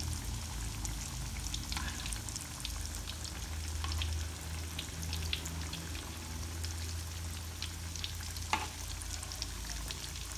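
Taro patties (perkedel talas) sizzling and crackling in hot frying oil, with scattered pops, one a little louder about eight and a half seconds in, over a low steady hum.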